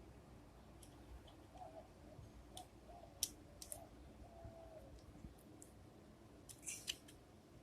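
Faint, scattered clicks and taps of small parts and tools being handled during carburetor reassembly, a handful of separate clicks with near silence between them.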